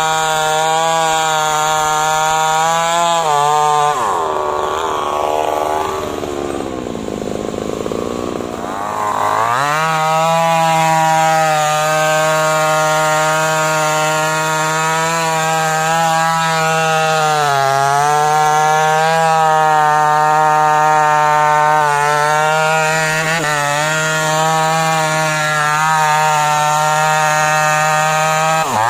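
Stihl MS 250 two-stroke chainsaw running and cutting into the trunk of a standing teak tree to fell it. About four seconds in, its pitch sags for several seconds and then climbs back, with a few brief dips later on.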